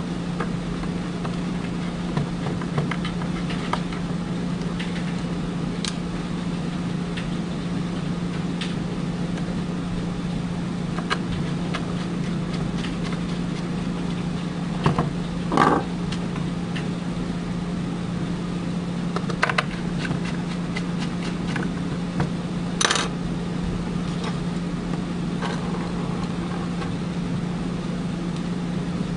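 Small scattered clicks and metallic rattles of screws and casing parts handled during hand reassembly of a Medifusion 3000 syringe pump, over a steady low hum.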